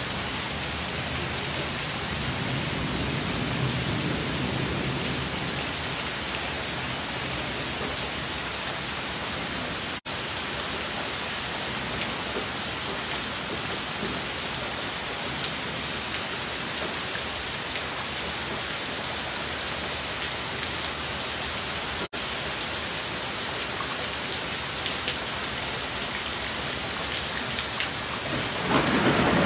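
Heavy rain pouring steadily, a dense even hiss. It drops out for an instant twice, and in the last second a loud peal of thunder begins to swell.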